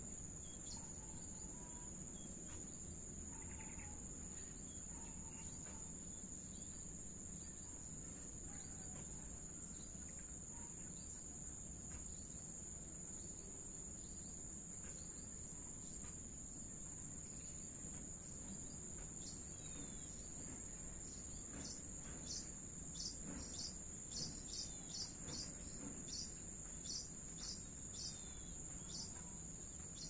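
Crickets trilling steadily at a high pitch over a low rumble of distant traffic. About two-thirds of the way through, a bird starts a run of short, sharp chirps, roughly two a second, lasting about ten seconds.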